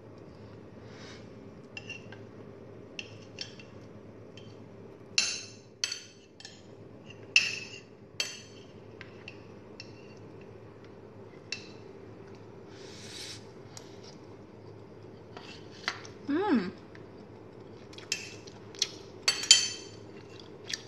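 A metal utensil clinking and scraping against a steel cooking pot of braised pork and eggs: scattered sharp clinks, the loudest about a quarter of the way in and again near the end, over a steady low hum. About three quarters of the way through there is a short squeak.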